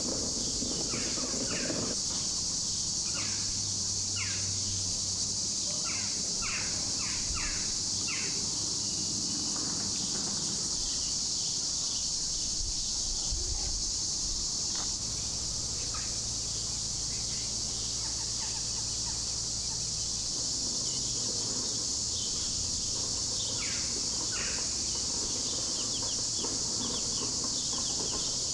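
A steady high-pitched insect chorus, with short bird chirps breaking in over it, many in the first third and only a few later. A low steady hum runs underneath.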